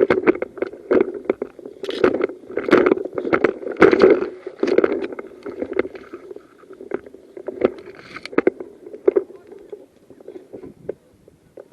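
Footsteps with rustling of clothing and kit, about one step a second, growing fainter near the end.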